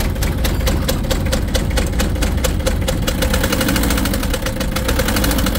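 Mitsubishi 4D56 four-cylinder diesel engine running just after starting, with a loud, rapid, steady knock over its drone. The mechanic calls it noisy and suspects something broken inside the engine.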